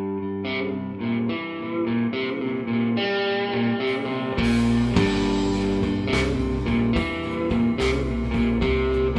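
Rock band playing: an electric guitar picks a repeated riff, about two notes a second, and a little over four seconds in the bass guitar and drums come in with cymbal crashes.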